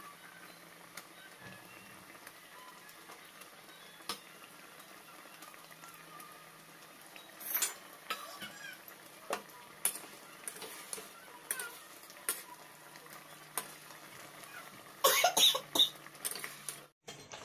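Tamarind and sugar sauce bubbling and sizzling with a steady hiss in a metal kadai as fried fish pieces go in. From about halfway there are scattered clinks and knocks of a metal spatula against the pan, the loudest in a quick cluster near the end.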